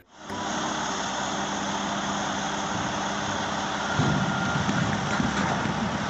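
Volvo A45G articulated dump truck's diesel engine running steadily as the body is hoisted to tip its load, growing louder about four seconds in.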